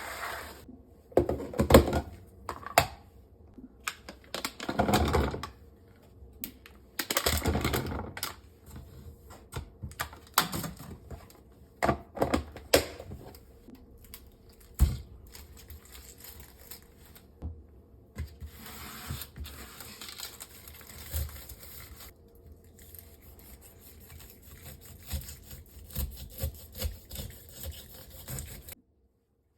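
Household objects being handled and set down: irregular clicks, knocks and rustling, with one sharp knock about halfway through.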